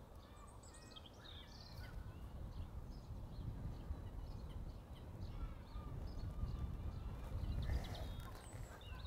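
Wind rumbling on the microphone, gusting louder from about two seconds in, with birds chirping and calling now and then.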